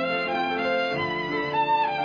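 Slow, mournful instrumental music of long held notes, one note giving way to the next every second or so, with a higher, louder note near the end.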